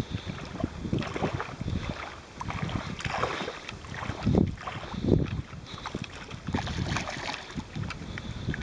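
Gusty wind buffeting the microphone over water splashing and sloshing around a hooked carp thrashing at the surface in shallow water. The surges are uneven, with the strongest about four and five seconds in.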